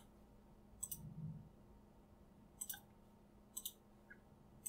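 A computer mouse clicking: four short, sharp clicks about a second or two apart, the last right at the end, over near silence.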